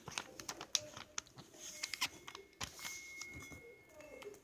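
A sheet of paper being folded and creased by hand: irregular light crinkles, rustles and small taps.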